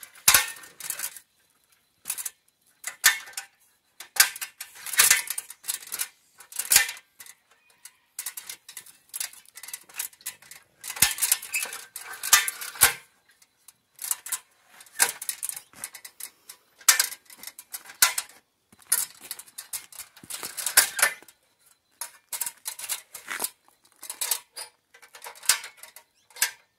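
Aluminium articulated multi-position ladder being folded and handled: irregular metallic clanks, clicks and rattles from its rails and hinge joints, coming in quick clusters.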